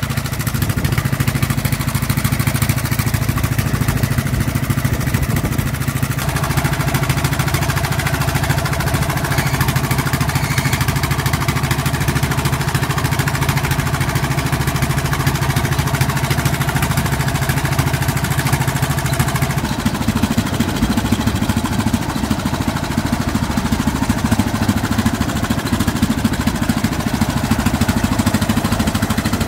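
Fishing boat's engine running steadily, with a change in its tone about two-thirds of the way through.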